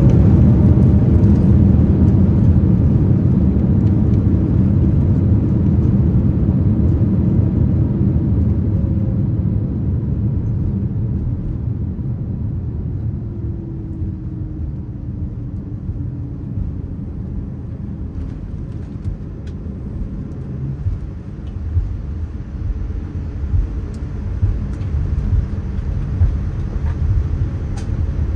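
Inside the cabin of a Boeing 787-9 on its landing roll: a loud low rumble of engines and wheels that fades over the first ten seconds or so as the jet slows, with a faint falling whine midway, then a steadier rumble with a few short jolts near the end.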